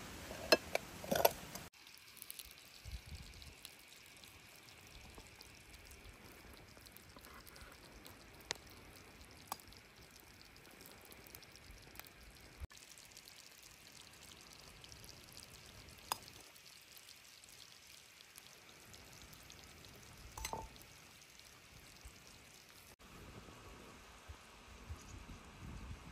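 Faint cooking sounds: several sharp clinks in the first two seconds, then a low hiss with scattered light clicks.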